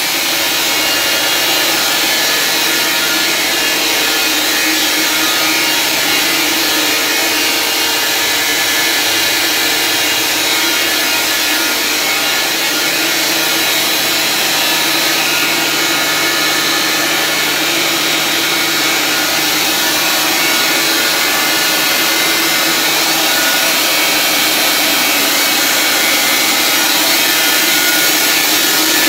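Loud, steady running noise of the electric motor-driven pumps of a QME Quadraplex booster pump station: a constant hum over a broad hiss.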